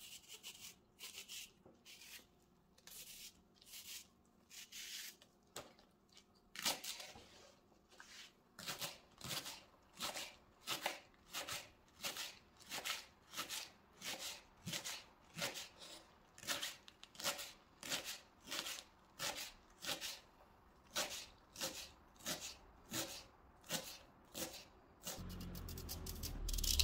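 Kitchen knife chopping leeks on a wooden cutting board: crisp cuts, each ending in a tap on the board, irregular at first and then settling into a steady rhythm of nearly two cuts a second.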